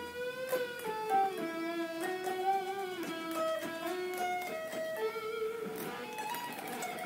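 Ibanez RG 370 electric guitar played through the JamStack clip-on amp speaker: a slow single-note melody of held notes, some with vibrato.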